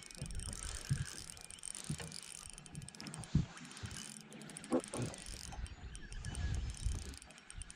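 Fishing reel being worked, a light mechanical whir and clicking, among irregular knocks and bumps of handling in the boat.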